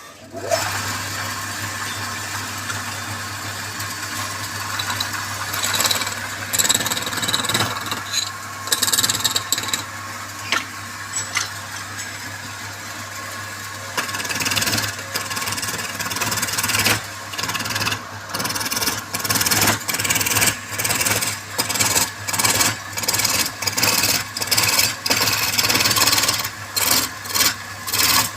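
Wood lathe motor starting up and running with a steady hum, while a turning tool scrapes and cuts the spinning wood. From about halfway the cutting comes in short strokes, about one a second.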